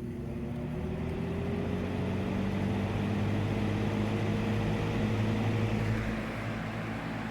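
Lasko B20200 20-inch box fan with a Sagitta PSC motor spinning up after start-up: motor hum under a rising whir of air from the blades, with a tone gliding upward over the first few seconds before it levels off at full speed.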